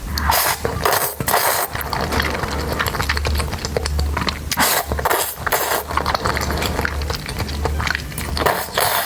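Close-miked eating and food-handling sounds for a mukbang: a dense run of small clicks, clinks and crackles, with louder clusters now and then, over a steady low hum.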